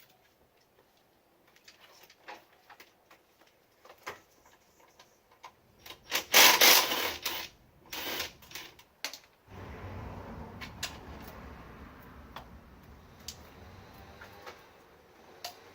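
Scattered clicks and knocks of tools and car parts being handled, with a loud rushing noise about six seconds in that lasts a second and a half, and a shorter one near eight seconds. A steady low hum comes in at about ten seconds.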